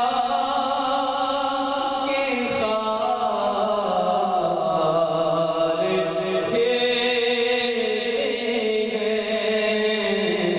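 A man singing a naat, an Urdu devotional song in praise of the Prophet, into a microphone, drawing out long notes that glide up and down in pitch.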